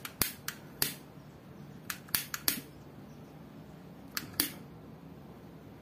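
A hand-held gas lighter clicked over and over in short runs of two to four, without catching, because the lighter is out of gas.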